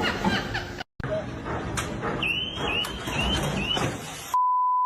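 A noisy background with a run of five short chirps at about three a second, followed near the end by a loud, steady electronic beep tone, like a bleep.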